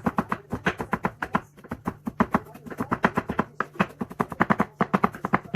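Kitchen knife chopping rapidly on a cutting board, about five or six strikes a second in short runs with brief pauses between them.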